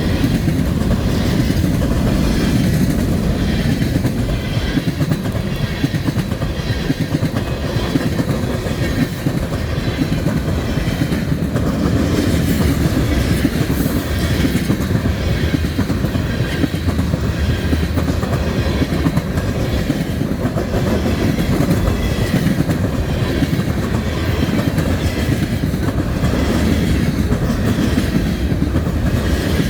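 Freight train cars rolling steadily past at a grade crossing, wheels clicking over the rail joints in an even rhythm over a continuous low rumble.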